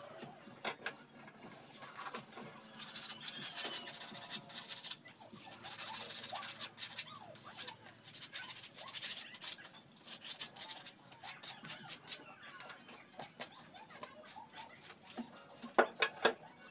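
Hand trowel scraping and tapping on wet cement and a cement-coated board: a run of quick scratchy strokes, with a few sharp knocks near the end.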